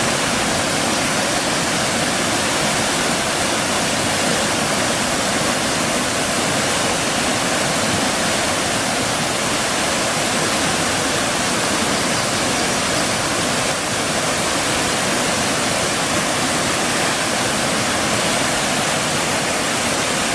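Waterfall and rushing stream water, a steady, loud, unbroken roar of falling water.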